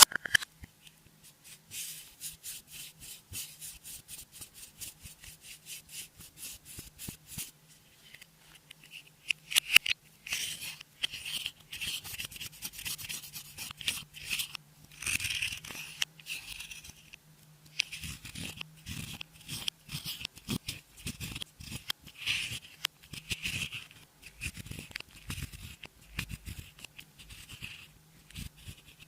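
Clear slime being worked by hand: a run of quick, sticky clicks, then longer stretches of squelching and crackling as it is pressed and folded.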